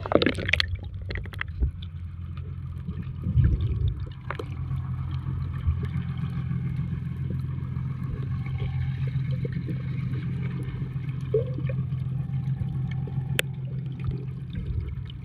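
Fishing boat's engine running with a low, steady drone, with water gurgling alongside; a brief thump about three seconds in.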